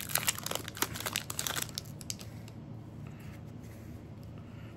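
A trading-card booster pack wrapper crinkling and tearing as the pack is ripped open. The crackle dies down about two seconds in, leaving only faint rustles.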